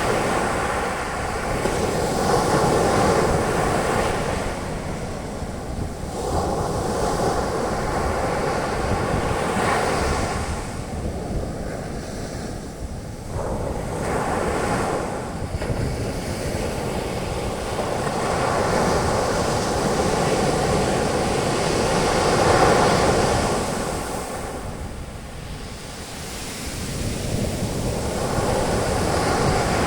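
Sea waves breaking on a beach and their foam washing up the sand, a continuous rushing wash that swells and fades every few seconds, with some wind buffeting the microphone.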